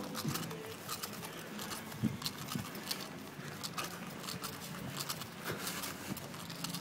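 Running footfalls on grass with the knocks and rustle of a phone camera being carried at a run.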